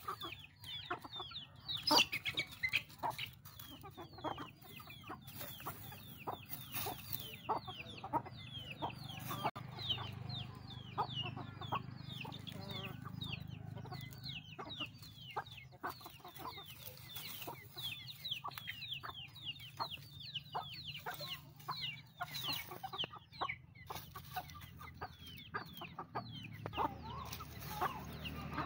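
Chickens foraging: chicks peeping continuously in short, high, falling calls, several a second, with clucking among them.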